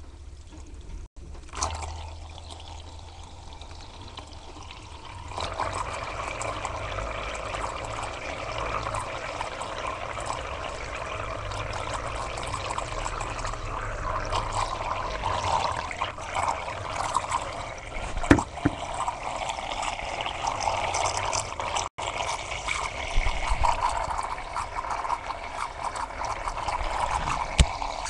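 Water swirling and trickling inside a clear container as a small water-tornado device runs. The sound comes on steadily about five seconds in, with a single knock a little past the middle.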